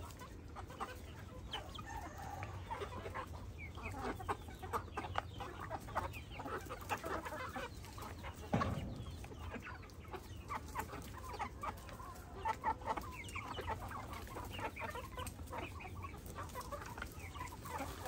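A flock of chickens clucking and calling in many short, overlapping notes, with one sudden louder sound about eight seconds in.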